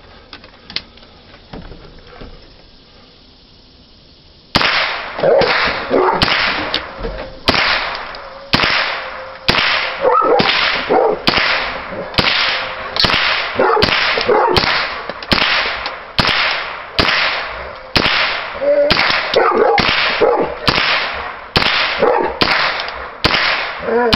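A semi-automatic AR-15 with a Chiappa .22 LR upper fires a long, steady string of single shots, roughly one every two-thirds of a second, starting about four and a half seconds in. Each shot has a short ringing tail. The even rhythm with no gaps shows the Black Dog magazine feeding without stoppages.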